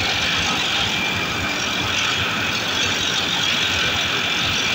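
Handheld air-powered tool running steadily against the perforated steel basket of a ship's sea chest strainer, scouring off scale and growth. The steady noise of engine-room machinery runs underneath.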